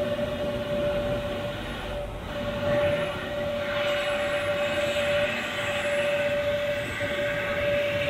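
Airbus A321neo's turbofan engines whining at low taxi power as the jet rolls past: one strong steady mid tone with a row of higher whines that grow louder about three seconds in as the aircraft comes closer.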